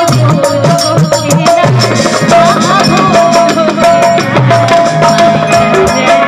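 Live Bhojpuri stage-show music: a woman singing into a microphone over a band, with a quick hand-drum rhythm and a held melody line.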